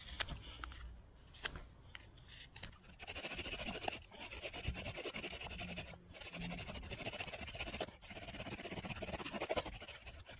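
A few light knife scrapes whittling a wooden spindle to a point. Then, about three seconds in, a bow drill starts: the wooden spindle grinds steadily in the notch of the wooden hearth board, with a short break every two seconds or so.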